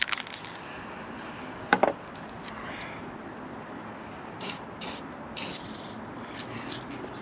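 Aerosol can of anti-rust paint sprayed in four short puffs in quick succession, about four and a half to five and a half seconds in, onto bare metal around a freshly drilled hole. A single short knock comes about two seconds in.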